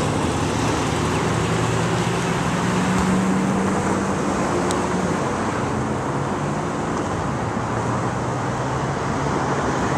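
Steady road traffic: cars driving past, a continuous rush of engine and tyre noise with a low engine hum under it.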